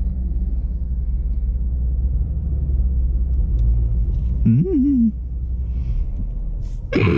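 Chevrolet Camaro engine idling with a steady low rumble, heard from inside the cabin. Near the end a short loud burst of noise comes, then the engine cuts out and stalls.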